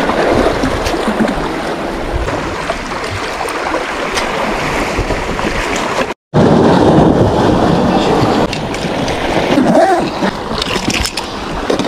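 Sea waves washing against the boulders of a rock breakwater, with wind on the microphone, a steady rushing noise. The sound drops out for a moment about six seconds in and comes back louder.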